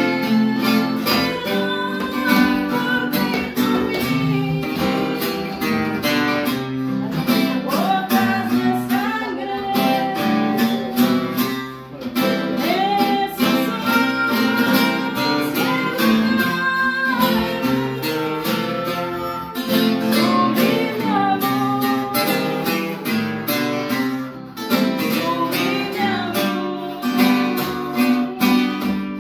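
Two acoustic guitars strummed together, with a woman and children singing along.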